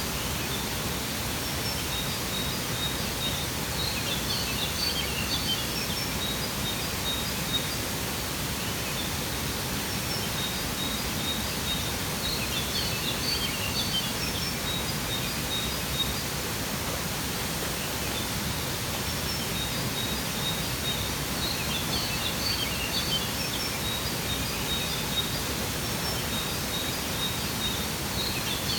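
Waterfall rushing steadily, with birds chirping in clusters that come back about every eight to nine seconds, and runs of short, evenly repeated high chirps between them.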